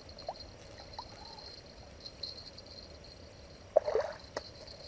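A hooked catfish splashing briefly at the water's surface about four seconds in, as it is reeled to the bank on a bent rod, with a few faint ticks before it.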